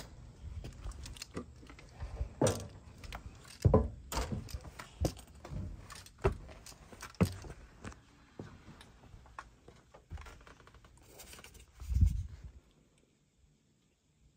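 Footsteps, knocks and clatter from someone climbing the entry steps and moving about in a motorhome: a string of sharp clicks and thuds, with a heavy low thump about twelve seconds in.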